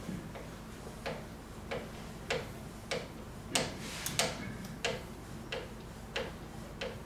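A girth wrench worked back and forth like a ratchet on a waterjet pump's metal high-pressure cylinder, a sharp click on each stroke, about once every 0.6 seconds, as the cylinder assembly is unscrewed.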